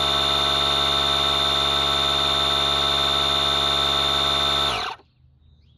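DeWalt 20V cordless tyre inflator's compressor running steadily with a high whine, then winding down in pitch and stopping near the end as the tyre reaches the 36 PSI set on its display.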